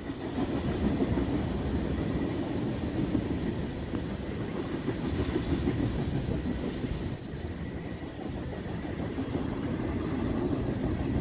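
Freight train of tank cars rolling past: a steady rumble of wheels on the rails.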